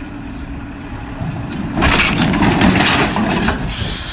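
A heavy engine rumbles, then about two seconds in a loud crashing clatter of many rapid strokes lasts nearly two seconds before settling into a steady hiss.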